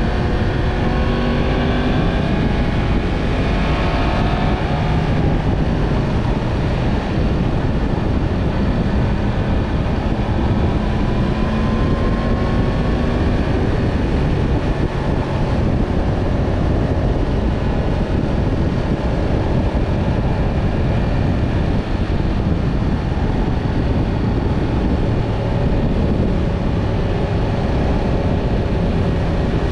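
Yamaha MT-10 motorcycle's crossplane inline-four engine running under way, under a heavy steady rush of noise. Its pitch glides up and down several times in the first dozen seconds, then holds steadier.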